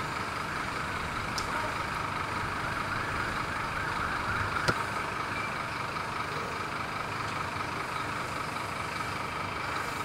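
Fire engines running steadily, a continuous engine rumble and hiss, with a single sharp crack a little under halfway through.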